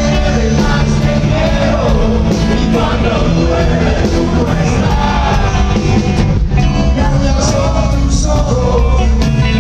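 Live rock band playing a song at full volume: heavy drums and bass with a bending melody line over them, recorded on a mobile phone.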